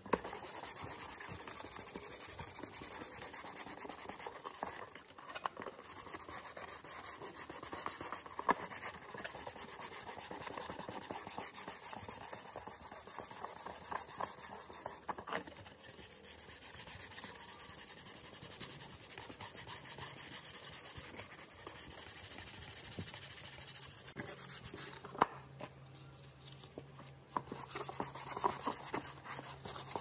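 Hand-sanding the hull of a small remote-control boat with sandpaper: a steady run of fast rubbing strokes, dropping quieter for a few seconds about three-quarters of the way through, with one sharp tap in that lull.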